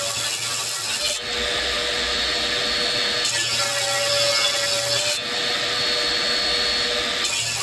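Table saw running and ripping a curly maple board: a steady motor and blade whine with the rough noise of the blade cutting wood. The sound shifts abruptly about every two seconds.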